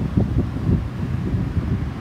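Wind buffeting the microphone in irregular low gusts, over the steady, distant rumble of an Airbus A320-216's jet engines flying over.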